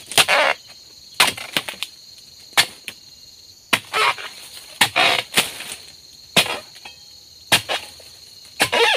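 A long-handled harvesting chisel (dodos) chopping into the thick stalks of oil palm fronds at the base of a low palm. It gives irregular sharp chops, about one a second, some followed by a brief rustle or tearing of the cut fronds.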